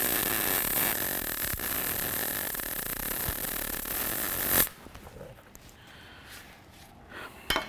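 MIG welding arc from an H&S Autoshot HSG130 110-volt MIG welder running hard wire, laying a bead on steel still hot from the previous pass: a steady crackling sizzle for about four and a half seconds that cuts off abruptly when the trigger is released.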